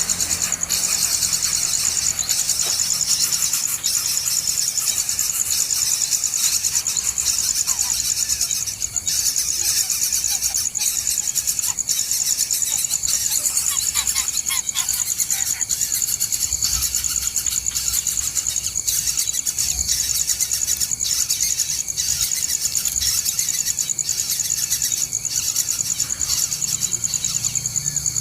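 Insect chorus, a steady high-pitched pulsing buzz, with a few faint short chirps in the middle.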